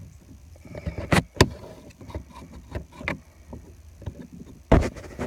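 Clicks, sharp knocks and scraping from working at the retaining clips of a steering-wheel airbag module, trying to release the last clip; two loud knocks come close together about a second in and again near the end.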